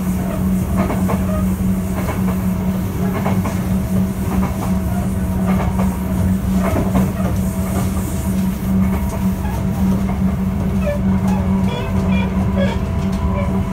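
Sotetsu 8000 series electric train with Hitachi GTO-VVVF drive running along at a steady pace. A constant low hum carries through, with clicks from the wheels and track recurring throughout.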